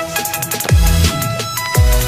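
Electronic background music with a heavy beat and deep bass notes that sweep down in pitch twice.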